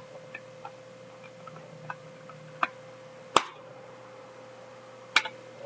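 Irregular sharp clicks and taps, mostly faint, with a louder one about three and a half seconds in and another near the end, over a steady faint hum.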